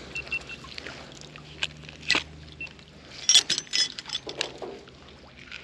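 A magnet-fishing magnet and rope being hauled up, with a crushed metal tin on it: scattered clicks, then a cluster of metallic rattles and clinks a little past the middle, over a low steady hum.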